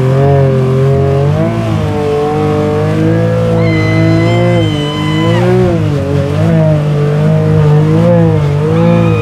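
Big-tired mud truck's engine revving hard, its pitch rising and falling continuously as the throttle is worked. A high steady whine sounds for about a second and a half near the middle.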